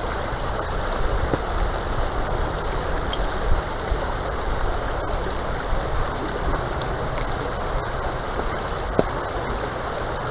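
River water running steadily over a gully bed, an even rushing.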